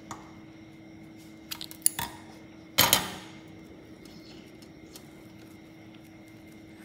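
Metal scissors snipping the red crimped end off a sausage casing with a few sharp clicks, then set down on a hard tabletop with a clatter that rings briefly.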